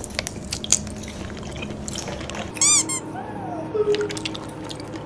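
Squeaky, cartoon-like sound effects with scattered sharp clicks. The loudest is a quick, rapidly repeating squeak about two and a half seconds in, followed by a couple of shorter sliding squeaks.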